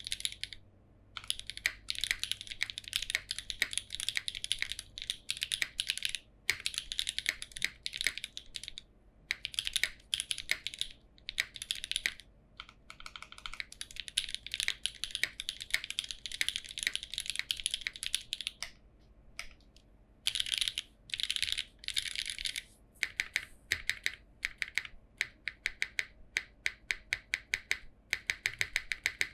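Mechanical keyboard with Jieum V2 switches, GMK Oblivion keycaps and no foam in the case, typed on in fast runs of keystrokes broken by short pauses. Near the end the keystrokes come singly in a steady patter.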